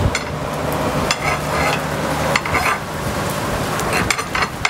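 A long metal poker clinking and scraping against the steel skewer rods and hooks at a tandoor's mouth: several separate knocks and a short rattle, over a steady sizzling hiss.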